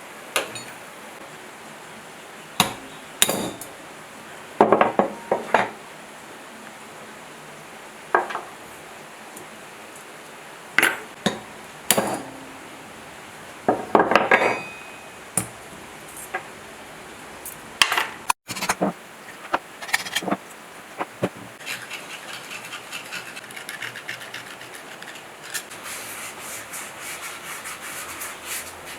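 Metal parts of a dismantled electric motor being handled and set down, with a dozen or so separate sharp clinks and knocks. From about three-quarters of the way in, a fast, continuous scraping takes over as a part is scrubbed clean.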